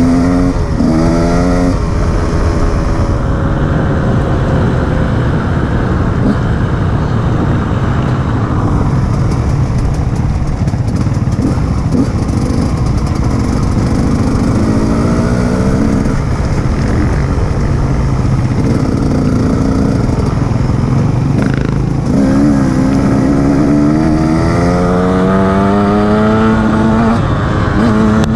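Enduro motorcycle engine under way off-road, its pitch climbing and dropping back several times as it accelerates and shifts gear, over a constant rushing noise.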